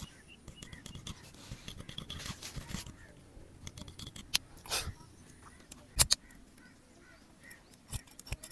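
Barber's scissors snipping hair: a string of sharp, uneven clicks, the loudest about six seconds in, with a short hissing rustle about two seconds in.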